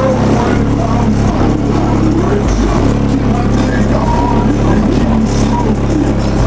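Car audio system playing music at high volume with heavy subwoofer bass, hard enough to shake sand loose across the vehicle's roof. The deep bass runs steadily, dropping briefly to a lower note about two and a half seconds in.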